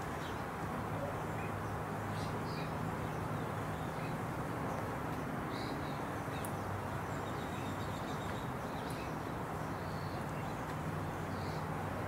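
Steady outdoor background noise with a low hum. A few faint, short high chirps from birds are scattered through it.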